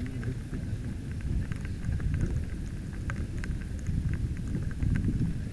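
Steady low rumble of wind and water noise on a camera mounted on the bow of an inflatable boat, with scattered faint ticks throughout.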